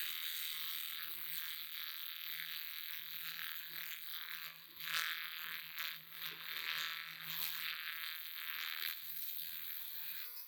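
A small power tool running steadily, a low hum under a scratchy hiss, stopping abruptly near the end.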